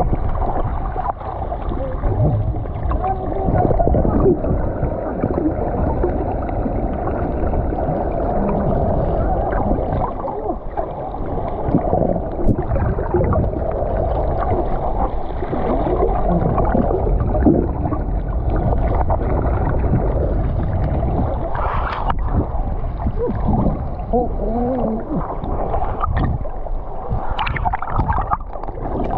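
Loud rumbling of sea water and wind on the microphone aboard a fishing boat, with faint voices now and then.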